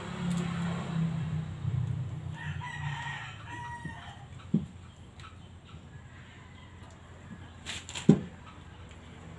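A drawn-out bird call about two to four seconds in, over a low hum in the first two seconds. Then two sharp knocks of a tool against the raised van; the louder one comes near the end.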